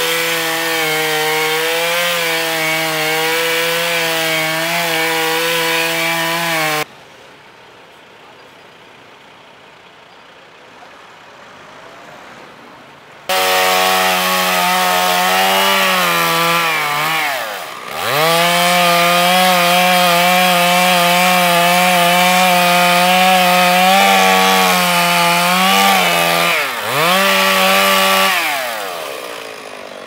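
Petrol chainsaw running at full throttle while cutting into a tree trunk, with a steady high engine note. It cuts off abruptly about seven seconds in, and after a much quieter stretch it comes back at full throttle around thirteen seconds in. Twice the pitch drops sharply and climbs back, and near the end it falls away.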